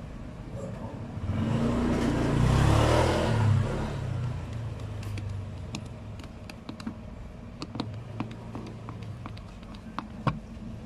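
A motor vehicle passes close by, its noise swelling and fading over a couple of seconds. Then come a string of small sharp clicks and ticks as a screwdriver works the metal hose clamp on the air-intake hose.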